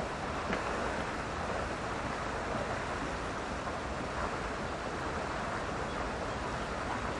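Steady rushing background noise, with a few faint short sounds over it.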